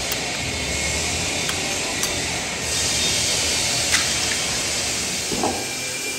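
Slate being worked at a processing plant: a steady hiss, a little louder in the middle, with a few sharp clinks.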